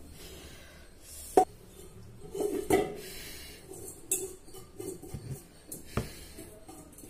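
Kitchen utensils and cookware being handled: a few sharp clinks and knocks of metal against pots and dishes, the loudest about a second and a half in, with lighter rattling between.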